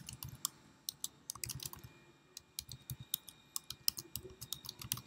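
Typing on a computer keyboard: a quick, uneven run of key clicks as text is entered.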